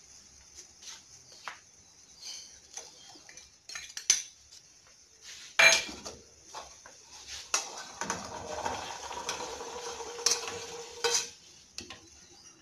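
Metal spoon and stainless bowls clinking against a stainless-steel saucepan as salt and small jurubeba berries are tipped into the heating water. Several sharp clinks come first, then about three seconds of steady scraping as the pan is stirred.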